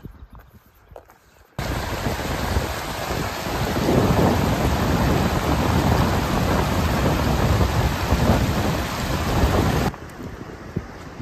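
Fast mountain river rushing over stones and rapids: a loud, steady rush of water that starts abruptly about one and a half seconds in and cuts off suddenly near the end. Before it, faint footsteps through long grass.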